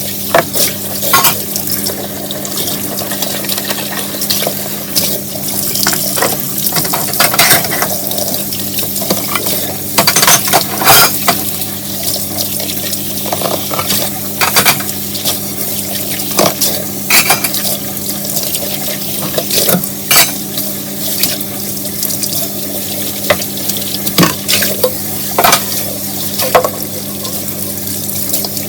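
Dishes and cutlery being washed by hand in a sink: frequent clinks and knocks of dishware over a steady scrubbing hiss, with some water.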